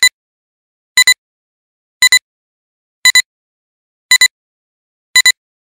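Electronic countdown beeps: a short double beep about once a second, six in all, with silence between.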